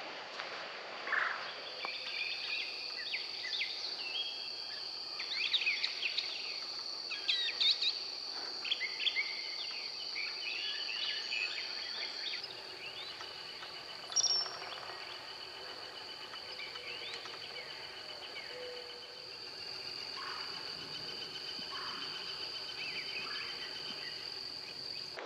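Insects keep up a steady high-pitched trill while songbirds sing over it: many varied chirps and whistles in the first half, one sharp loud call about halfway, then a long, fast, even trill.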